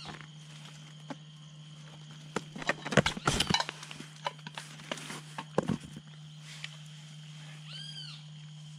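Clicks, scrapes and wet rustles of a fish being cleaned by hand, bunched between about two and a half and six seconds in and loudest around three seconds. A steady low hum runs underneath, and a short, high arched call sounds near the end.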